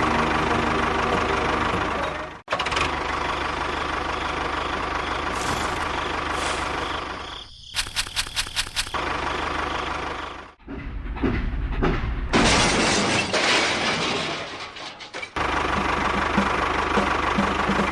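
Small motors of model construction machines running in several short segments that cut in and out suddenly, with a quick run of sharp clicks about eight seconds in.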